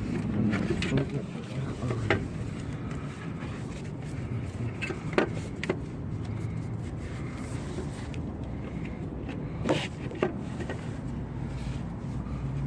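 Scattered light metal clicks and knocks as a replacement alternator and its belt are handled and lined up by hand in a car's engine bay, over a steady low hum.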